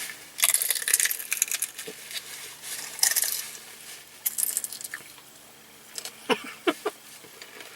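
Crisp food crunched between the teeth in three bouts of crunchy chewing, the first and longest about half a second in, then a few quieter crackles and small mouth sounds.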